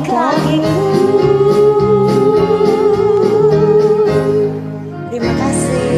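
Karaoke pop backing track with a voice holding one long note with a slight vibrato. The note ends a little after four seconds in, and the instrumental accompaniment carries on.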